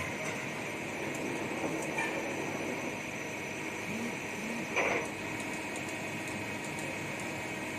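Steady running machine noise, a hiss with a thin high whine over it, and a short knock about five seconds in.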